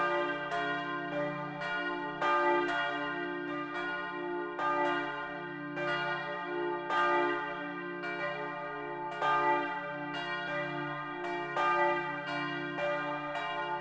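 Full peal of four swinging bronze church bells (tuned d', f', g', b-flat', cast by Junker of Brilon), heard close up inside the bell tower. Strokes from the different bells fall in an irregular, overlapping pattern, each ringing on over a steady low hum.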